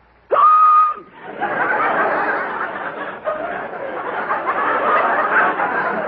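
A man's loud comic hiccup, a short yelp that jumps up in pitch and holds briefly, followed about a second later by a studio audience laughing without a break.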